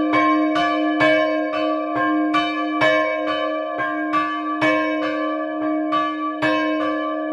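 Two church bells swinging and ringing together, heard from inside the belfry: a 1923 bell from KID Jesenice (83 cm, about c'') and a 1928 bell from Strojne Tovarne in Livarne Ljubljana (68 cm, about d''). Their clapper strokes alternate about twice a second over a steady ringing hum. Because the two bells are of different types, the interval between them sounds like a semitone.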